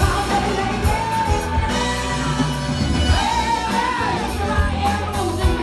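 Live rock band playing: a woman singing lead over electric guitars, drums and keyboard, with a steady drum beat.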